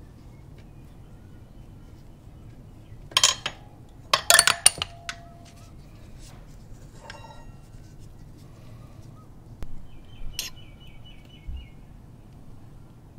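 Metal clinks and clicks as pliers and fingers work the retaining pin and brake pads out of a motorcycle rear brake caliper. There are two loud bursts of clinking, about three and four and a half seconds in, with a short ringing tone after the second, then a few lighter clicks.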